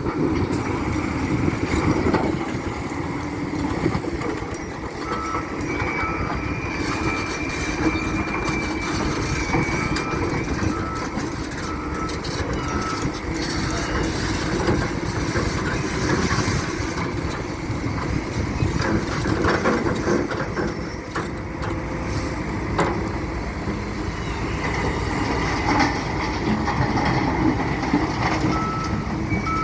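Wheel loader's diesel engine running under load, with a reversing alarm beeping in an even series from about five seconds in to about halfway, and again near the end. A few sharp knocks stand out over the engine.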